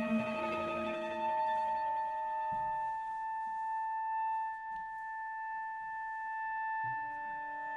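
Live orchestral music: a wind instrument holds one long high note while the chord beneath it fades out about three seconds in, and lower instruments come back in near the end.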